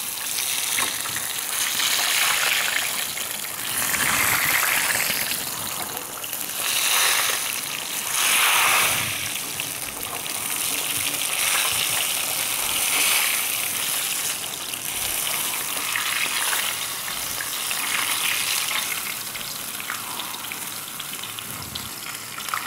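Whole fish deep-frying in a pan of hot oil: a steady sizzle that swells and eases every couple of seconds.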